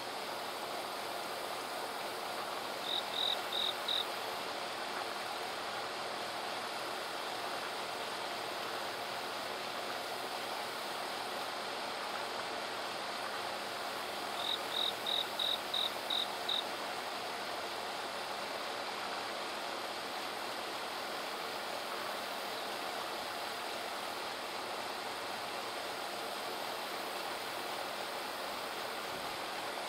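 Two short runs of high, evenly spaced chirps, about three a second, four of them about three seconds in and seven more about fifteen seconds in, over a steady rushing background noise.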